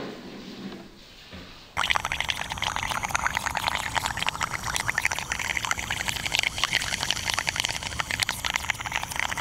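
After a quiet start, a dense crackling, gurgling water sound begins abruptly about two seconds in: air from the balloon of a toy balloon boat sputtering out of its bent straw at the waterline and bubbling, with water lapping in a plastic tub as the boat circles.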